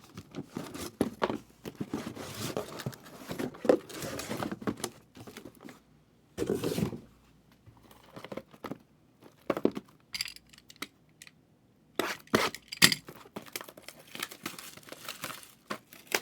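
Plastic and foil packaging on trading-card boxes and packs being torn open and crinkled by hand, in irregular crackling bursts with a couple of short pauses.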